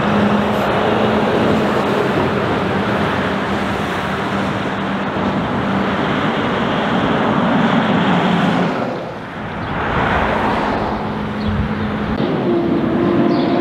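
Volvo FH16 750 truck's 16-litre inline-six engine running with a steady drone as the loaded stock truck works through the bends, fading about nine seconds in. Light vehicles then go by with a swell of tyre and engine noise, and a second, higher-pitched truck engine drone comes in near the end.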